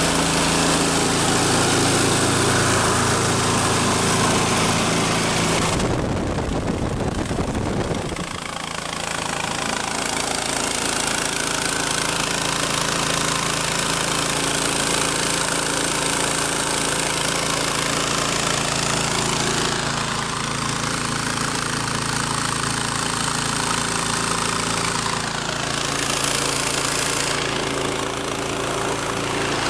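Small Predator gasoline engine running steadily as it belt-drives a huge centrifugal blower fan, with the rush of the air it moves; the engine is too small for the fan. A brief low rumble comes in about six seconds in.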